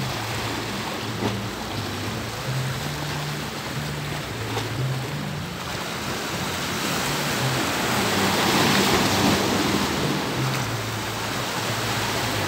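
Sea waves washing in with a steady hiss of surf, growing louder in the second half. Low notes that change pitch every second or so run faintly underneath.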